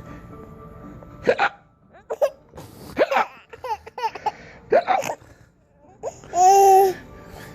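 Nine-month-old baby hiccuping: three short, sharp hiccups about a second and a half apart, with giggles between them and a longer held vocal note near the end.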